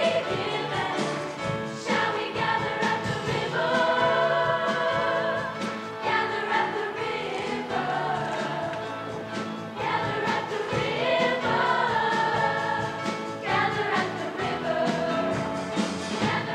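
Show choir singing together with instrumental accompaniment and a steady beat, the voices holding long, wavering notes.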